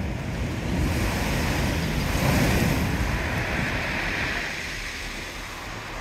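Rough storm surf breaking against a seafront wall, with seawater washing across the promenade and wind; the surge swells about two seconds in, then eases.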